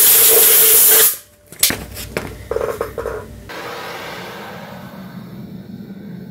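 Compressed-air blow gun hissing into a crucible, cutting off abruptly about a second in, followed by a few clicks and knocks. About halfway through, the gas burner of a keg melting furnace is lit with a handheld torch and settles into a steady low rumble.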